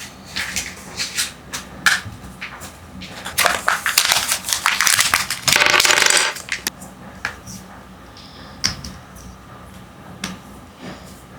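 Kinder Joy egg and wrapper being handled close up: scattered clicks and taps of plastic, then a dense crinkling of wrapper for about three seconds in the middle, then a few last clicks.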